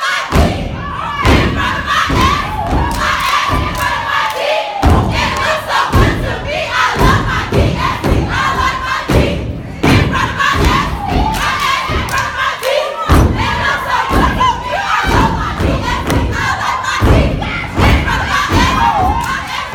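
A step team stomping in unison on a stage, heavy rhythmic thuds several times a second, under a layer of shouting and cheering voices.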